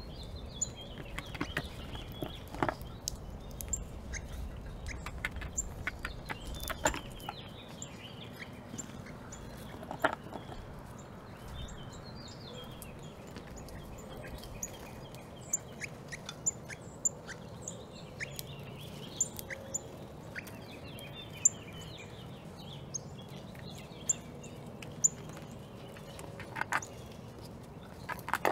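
Small songbirds chirping and singing, with short high chirps repeating over and over, mixed with scattered sharp clicks and taps.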